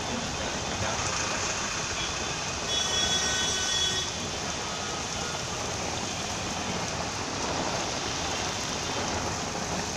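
Heavy rain falling steadily on a street, with vehicles passing on the wet road. A brief high, thin tone sounds about three seconds in.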